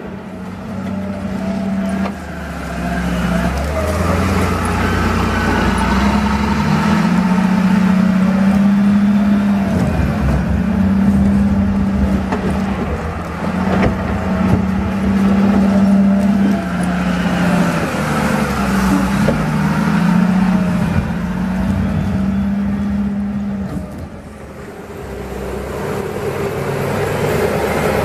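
Komatsu WA470 wheel loader's diesel engine working while it pushes snow, its note rising and falling as the revs change, easing off near the end.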